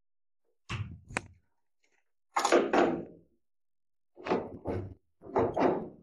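Long-handled crimping pliers pressing a copper cable lug onto heavy 50 mm² battery cable: a run of heavy metallic clunks and knocks, mostly in close pairs, from the die and handles working.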